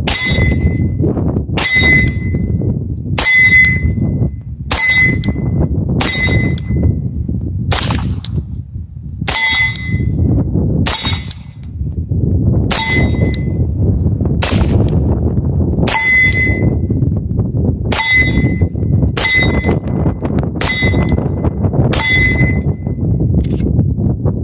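Beretta M9A3 9mm pistol fired in slow, steady single shots, about sixteen of them roughly a second and a half apart. Most shots are followed by a short ring from a steel plate target being hit, and wind buffets the microphone throughout.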